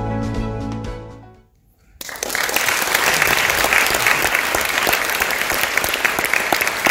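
Soundtrack music fading out over the first second and a half, a brief silence, then an audience in a theatre applauding steadily.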